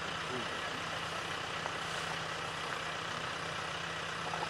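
A vehicle engine idling with a steady low hum, over a continuous even background hiss.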